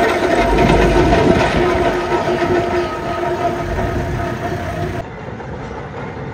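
Steam traction engines driving along a road, rumbling and clanking, with a long, steady whistle-like tone over them. About five seconds in the sound drops suddenly to a quieter engine rumble.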